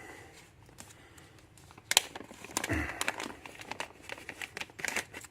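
Hands rummaging through challenge locks to pick one out: crinkling and rustling handling noise, with a sharp knock about two seconds in and a few light clicks near the end.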